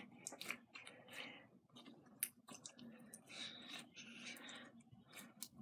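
Faint sticky clicks and soft squishes of slime being kneaded between the hands.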